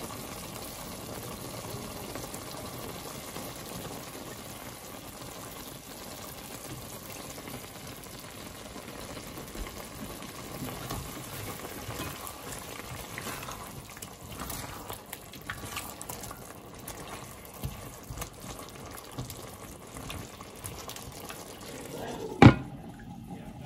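Chicken wings simmering and bubbling steadily in sauce in an enamelled cast-iron pan, with light clicks of a spatula stirring them. Near the end a glass lid knocks down onto the pan once, sharply.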